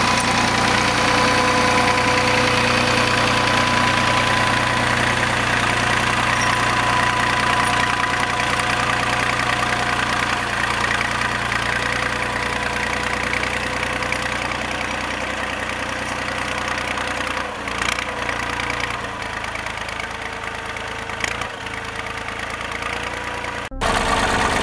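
Volvo BM 400 tractor engine running steadily, easing slightly in loudness over the second half. The sound breaks off abruptly near the end and then resumes.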